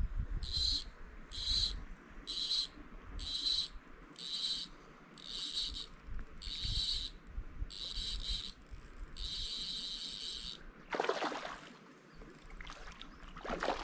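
An insect chirps in short high-pitched pulses about once a second, with one longer buzz around nine seconds in. Near the end, a hooked trout splashes at the surface twice.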